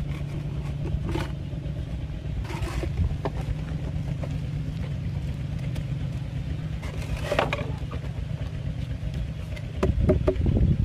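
A steady low motor drone with scattered light clicks and knocks; it grows louder near the end.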